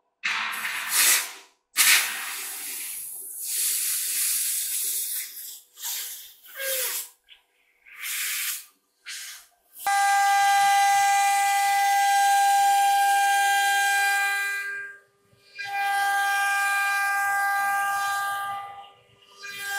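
Short hissing bursts that start and stop irregularly. About halfway through comes a CNC router spindle cutting an MDF sheet: a steady high whine of several pitches over the cutting noise, which drops out briefly twice.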